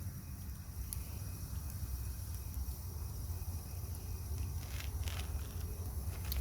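Outdoor bonfire crackling faintly, with a few sharp pops about a second in, near five seconds and near the end, over a steady low rumble and a faint hiss.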